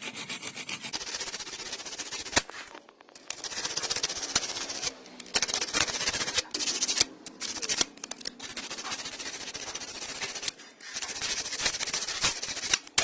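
Hacksaw cutting into the spline grooves of a metal CVT pulley, rasping back and forth in runs of strokes with short pauses between them.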